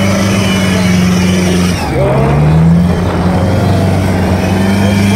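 Mitsubishi Pajero short-wheelbase's 4D56 2.5-litre four-cylinder diesel engine running under load as the 4x4 pushes through thick mud, holding steady revs with a short rise in revs about two seconds in.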